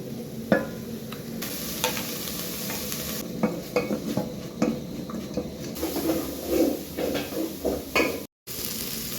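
Food frying in a pot with a steady sizzle, while a spoon stirs and knocks against the pot many times. The sound drops out for a moment near the end.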